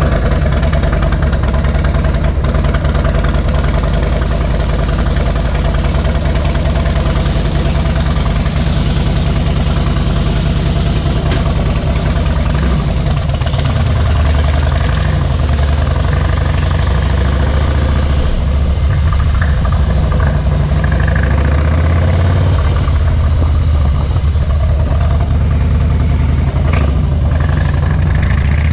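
Harley-Davidson Softail Deluxe's air-cooled Twin Cam V-twin running through Vance & Hines Straight Shots slip-on mufflers, idling steadily at first; from about halfway through the engine note starts to rise and fall.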